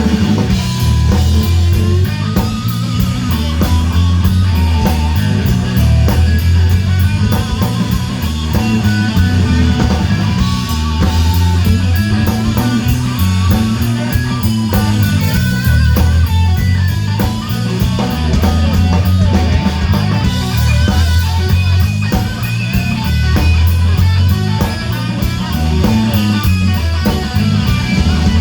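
Electric blues band playing a slow blues: lead electric guitar lines with wavering bent notes over bass and drums, and a steady cymbal beat.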